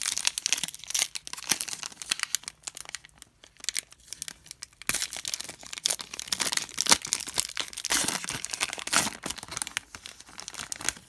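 A foil trading-card pack being torn open and crinkled by hand, an uneven run of sharp tearing and crackling, with brief lulls between handlings.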